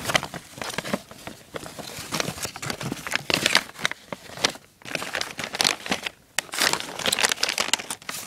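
Gift packaging, paper and plastic, crinkling and rustling in hands as a present is opened, in uneven bursts with two brief lulls partway through.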